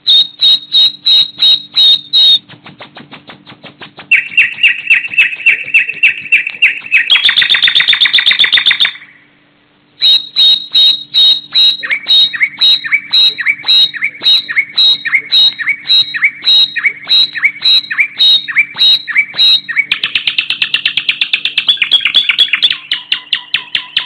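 Nightingale singing in loud, separate phrases with short pauses between them. The phrases include rapid repeated clicking notes, a fast buzzy trill, and a long run of twenty-odd repeated whistled notes at about two a second, ending in a rich churring phrase.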